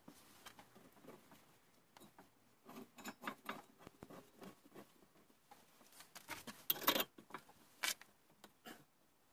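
Gloved hands handling the steel square-tube frame of a homemade lathe: faint scattered clicks, taps and scrapes of metal parts, with louder knocks about three seconds in and again around seven and eight seconds.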